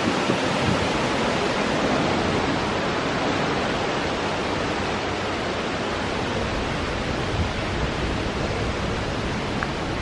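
A large waterfall pouring, a steady even rush of falling water.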